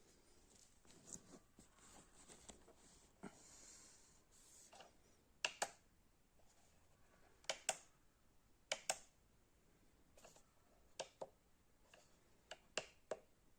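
Faint handling noises: soft rustling, then a series of light clicks, mostly in quick pairs, from the unboxed jump starter and its accessories being handled.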